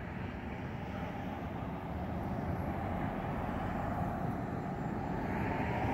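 A car driving along the road: a steady tyre and engine rumble that grows slowly louder.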